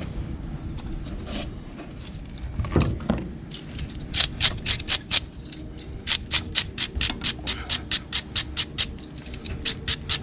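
Hand wire brush scrubbed back and forth over a marine raw water pump shaft, cleaning the grooved, worn area where the lip seal runs. It starts about four seconds in as quick, even strokes, about four a second, after a single knock.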